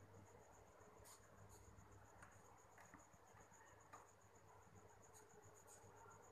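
Near silence with a faint, high-pitched chirp repeating evenly about five times a second, and a few faint scratches.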